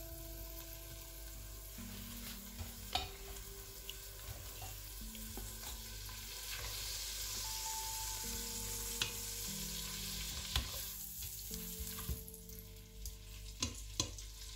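Butter melting and sizzling in a stainless steel pot while being stirred with a plastic slotted spatula, the sizzle growing stronger around the middle. A few light knocks of the spatula against the pot.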